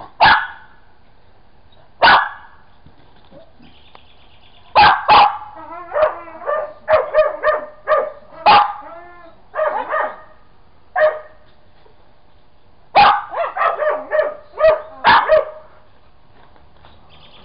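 Dog barking in sharp single barks: two about two seconds apart, then a quick run of barks, a short pause, and a final flurry.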